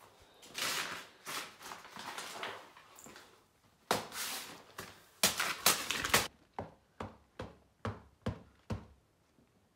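Printed paper being crumpled and scrunched by hand into a shoe: two long stretches of rustling and crackling, then a run of short crackles about twice a second.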